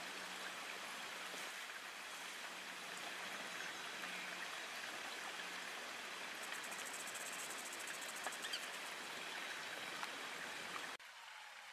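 Steady hiss of background noise with a few faint clicks and a brief high buzz partway through; it drops off abruptly near the end.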